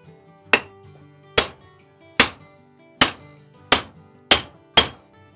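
Seven sharp hammer blows on a wooden block set in the eye of a steel double bit axe head held in a vise, driving the old hickory handle wood out of the eye. The blows come a little quicker toward the end, over background music.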